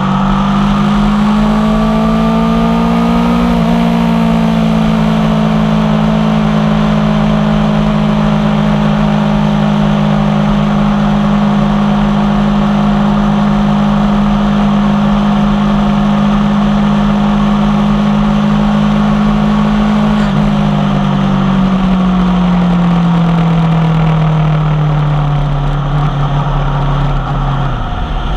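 2016 Aprilia Tuono V4 1100 Factory's V4 engine running through an unbaffled aftermarket exhaust while riding. The engine note climbs over the first few seconds and holds steady for a long stretch. Near the end it falls away as the bike slows.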